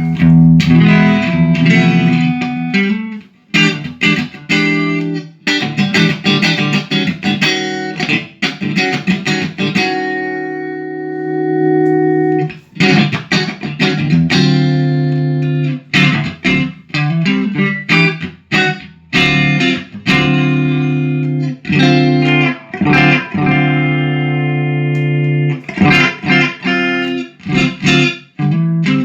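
Electric guitar played through a 1980 silverface Fender Pro Reverb tube amp: chords strummed and picked in choppy bursts, with one long chord left ringing about ten seconds in. The amp is running after a full recap and new power tubes.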